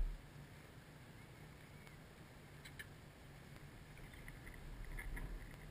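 Faint outdoor ambience with a low rumble that swells about four seconds in, and a few faint ticks.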